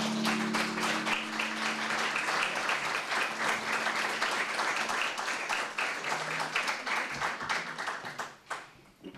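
Audience applause, with a held low note from the instruments ringing under it for the first few seconds. The clapping dies away near the end.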